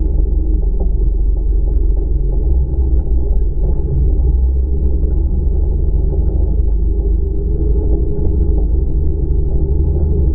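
Polaris RZR 800 four-door side-by-side's engine running steadily as the machine drives along a rutted mud trail, heard as a constant low rumble.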